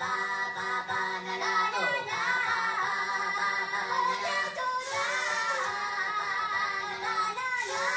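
Music with high singing voices over a steady held tone, the soundtrack of a film video played as a demo.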